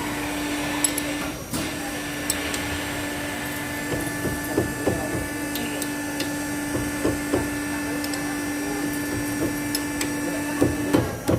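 A machine's steady, even-pitched hum, with scattered light clicks and knocks; the hum stops shortly before the end.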